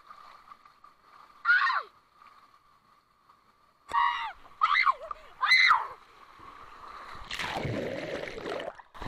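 A girl's four short, high-pitched excited shouts as she rides down a water slide: one about a second and a half in and three between four and six seconds in. Near the end comes a rushing splash as she plunges into the pool.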